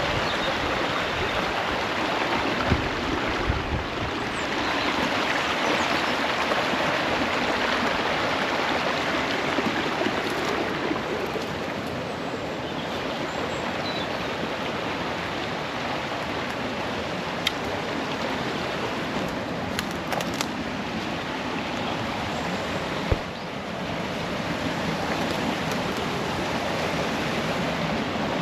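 Steady rushing of running water, like a stream, with a few faint clicks.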